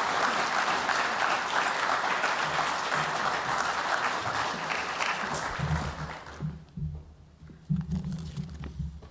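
Audience applauding, the clapping dying away about six seconds in; low thuds and rumbles follow.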